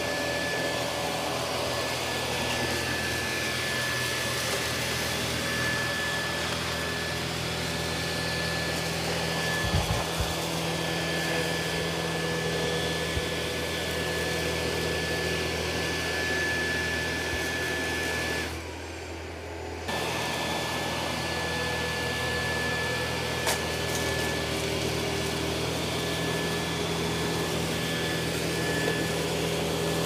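Dyson 360 Vis Nav robot vacuum running across a hard floor, picking up scattered debris: a steady suction noise with a thin steady whine. A few knocks about ten seconds in, and the sound briefly drops away for about a second a little past halfway.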